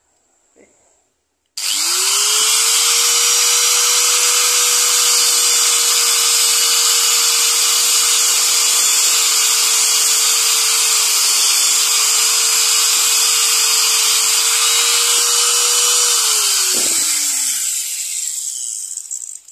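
Small electric angle grinder switched on about a second and a half in, running with a steady whine and a hiss as its disc cuts the slot for the tail into a teak wood lure body. It is switched off near the end and spins down, its pitch falling.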